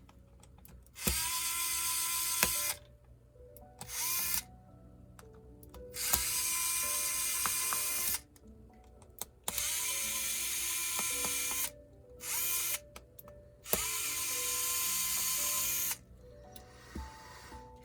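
Small electric screwdriver running in about six bursts of one to two seconds each, each spinning up quickly and then holding a steady whine, backing out laptop screws.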